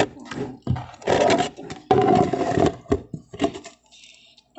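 Homemade slime being scraped and pressed into a plastic container, in two rough scraping bursts about a second long, with smaller scratchy handling noises between and after.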